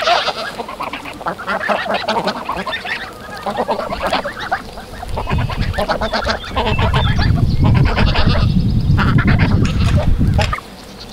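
A flock of domestic geese honking repeatedly, many short calls overlapping. From about five seconds in, a heavy low rumble runs under the calls and cuts off abruptly shortly before the end.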